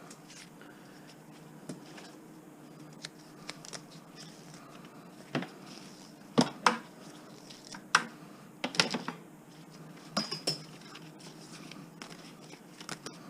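Metal clinking and clattering: stripped scrap wire and metal pieces being handled and dropped, with several sharp clinks bunched between about five and eleven seconds in, over a faint steady hum.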